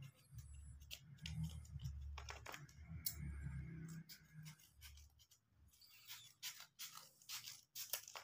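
Faint rustling and scratching of craft paper being handled, with scattered short clicks, and a low rumble for about the first half.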